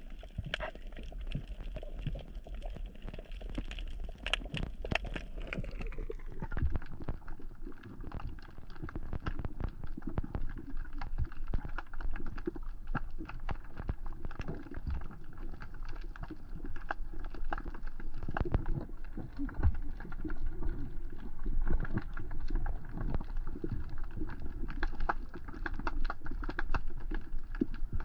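Underwater coral-reef ambience: a dense, steady crackle of clicks from snapping shrimp over a low rumble. A higher hiss fades out about five to six seconds in.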